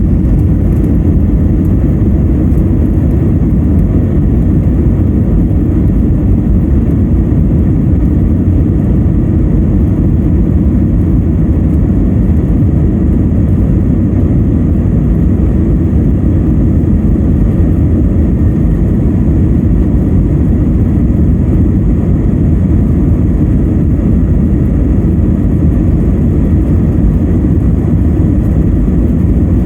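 Jet airliner cabin noise during takeoff: a steady, loud low rumble of the engines and airflow heard from inside the cabin.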